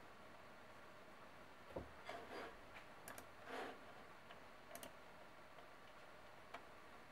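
A few faint, scattered computer mouse button clicks over near-silent room tone.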